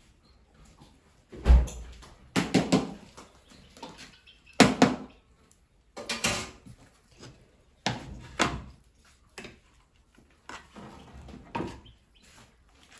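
A series of short knocks and clatters every second or two, with one heavier thump about a second and a half in, from pans, utensils and other things being handled while cooking.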